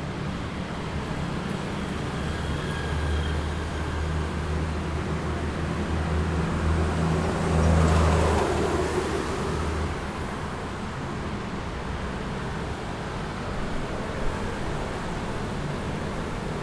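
Busy city street traffic: a steady hum of passing vehicles, with one engine passing close and loudest about eight seconds in, then fading.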